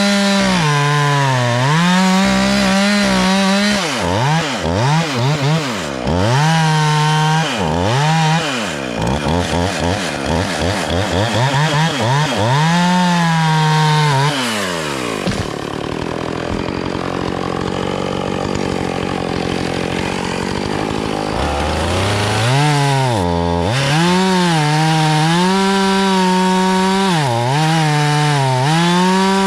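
Chainsaw engine revving up and down over and over, with quick blips of the throttle. Just past the middle it settles to a steady idle for several seconds, then revs again.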